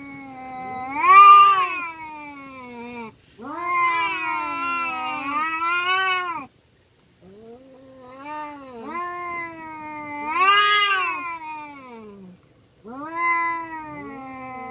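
Domestic cats caterwauling in a fighting standoff: long, drawn-out threat yowls that rise and fall in pitch, four in a row with a short break in the middle.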